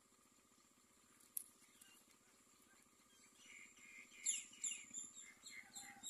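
A run of quick falling chirps from common mynas at the nest, starting about three seconds in and coming about three a second. A single sharp click comes just over a second in.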